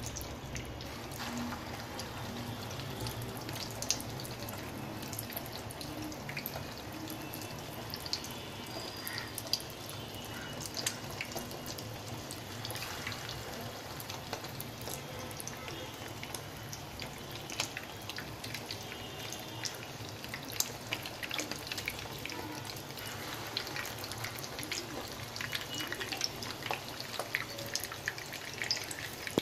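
Breadcrumbed, egg-coated chicken cutlets shallow-frying in hot oil in a pan: a steady sizzle with many scattered crackles and pops.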